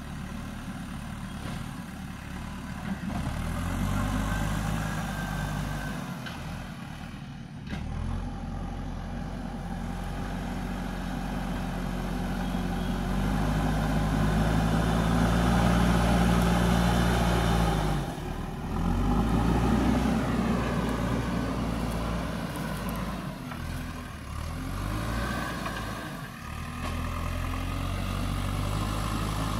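JCB backhoe loader's diesel engine working under load, revving up and easing off again and again as the front bucket digs, pushes and lifts soil. The engine is loudest in the middle of the stretch, with short drops in revs at a couple of points.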